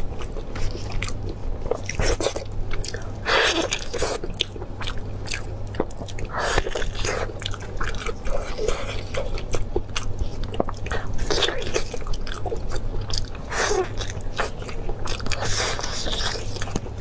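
Close-up sounds of a person biting, tearing and chewing braised lamb: irregular wet smacks, squelches and small clicks of the mouth, over a steady low hum.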